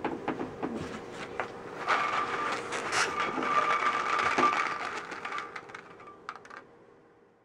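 Rice rattling inside a long latex twisting balloon (260) as a balloon rattlesnake is shaken: a dense, continuous rattle of small clicks that fades out near the end.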